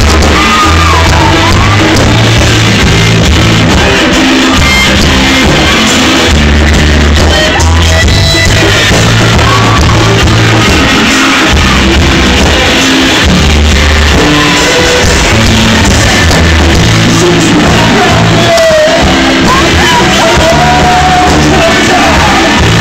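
Live rock band playing loudly, with drums, a stepping bass line and shouted singing.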